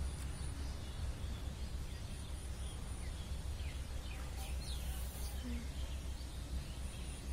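Steady low background rumble with a few faint, short, high bird chirps over it, mostly in the middle of the stretch.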